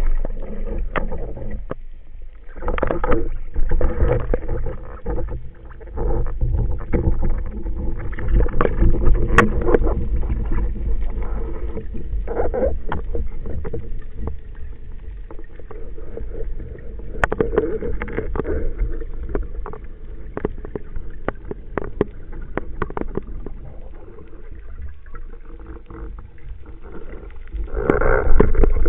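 Water noise heard through an underwater camera housing: water rushing and swelling in waves every few seconds over a steady low rumble, with scattered sharp clicks and knocks.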